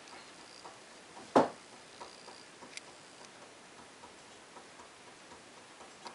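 A cat's paw striking a glass-paned French door once, a loud sharp knock about a second and a half in, over faint regular ticking about twice a second.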